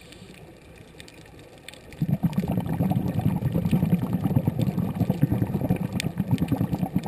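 Scuba diver's exhaled bubbles gurgling loudly past the underwater camera, a dense run of rapid irregular bubble pops that starts about two seconds in. Before it there is only a faint underwater hum with scattered clicks.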